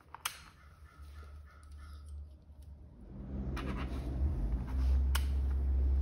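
A toggle switch clicks on sharply. About three and a half seconds later the turn-signal flasher relay starts clicking as the bulbs blink, two clicks about a second and a half apart, over a low hum that rises about three seconds in.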